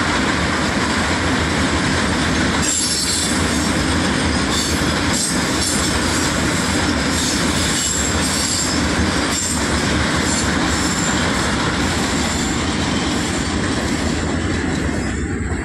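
A rake of BTPN petroleum tank wagons rolling past: a steady rumble of steel wheels on rail with knocks over the rail joints and a high-pitched metallic screech of wheels in the middle stretch. The noise begins to drop away at the very end as the last wagon clears.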